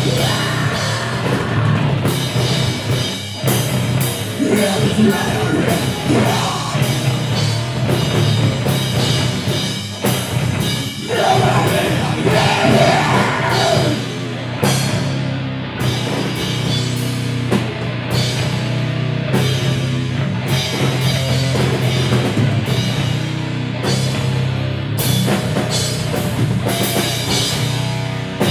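Live rock band playing loud: electric guitar, bass and a drum kit with cymbal hits, with a woman singing into the microphone in stretches.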